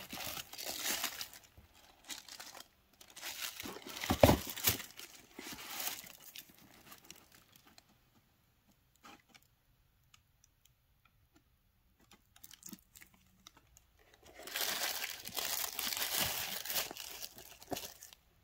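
Paper and plastic packaging rustling and crinkling as items are handled out of a box lined with tissue paper and bubble wrap, in three stretches, with a sharp knock about four seconds in. In the quiet middle there are only a few light ticks.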